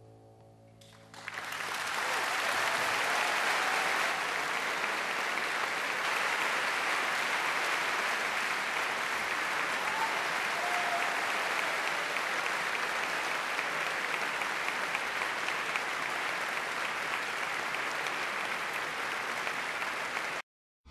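The song's final chord fades out, then a large audience starts applauding about a second in, an even clapping that goes on steadily and cuts off abruptly near the end.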